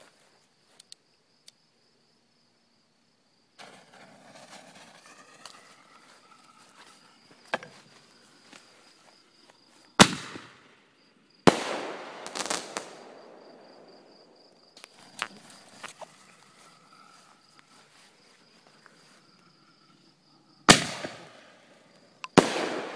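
Consumer fireworks going off: four loud bangs, two about ten seconds in a second and a half apart and two more near the end, each with a fading rumble and crackle. Stretches of lighter crackling and popping come in between. Crickets chirp steadily underneath.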